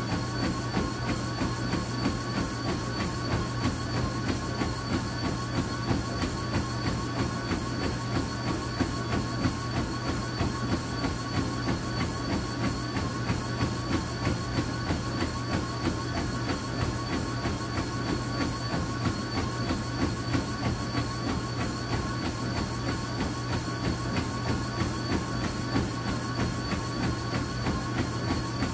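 Treadmill in use during a run: the motor's steady hum and whine, with a runner's feet striking the belt in quick, even footfalls.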